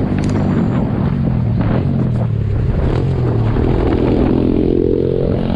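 Small dirt bike engine running close by, with its pitch rising as it revs up about three and a half seconds in.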